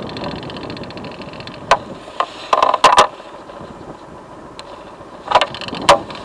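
A motorcycle at a standstill with its engine running low, under several sharp clicks and knocks close to the microphone: one a little before two seconds in, a quick cluster around the three-second mark, and two more near the end.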